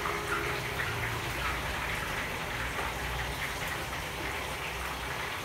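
Steady sizzling of food frying in pans on a gas stove, with a low steady hum underneath.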